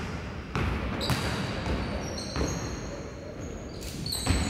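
Basketball bouncing on a hardwood gym floor: a few separate thuds at uneven intervals, the strongest near the end. Short high squeaks of sneakers on the court come and go over it.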